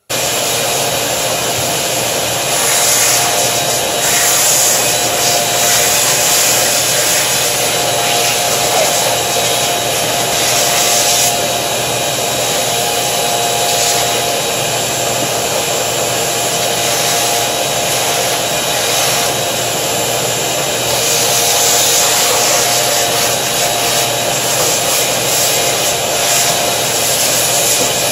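Shop vacuum running steadily, its hose sucking along the door opening's sill and flange where the old door seal was pulled off. A steady rush of air with a faint whine whose pitch wavers slightly.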